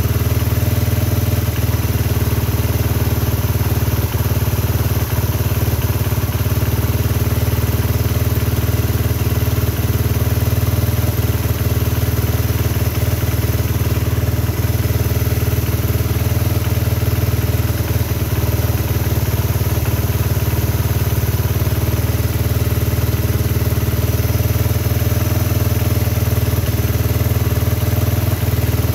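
Honda XR100R's air-cooled single-cylinder four-stroke engine idling steadily at an even, unchanging speed.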